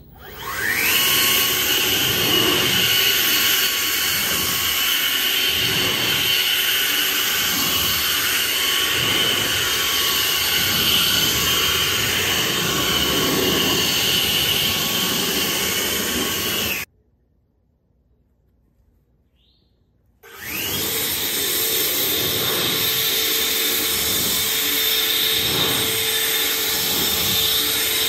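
EGO 530 battery-powered leaf blower spinning up with a rising whine and blowing steadily, then stopping abruptly. After about three seconds of near silence, an EGO 650 battery leaf blower spins up and blows steadily with a steady hum in its sound.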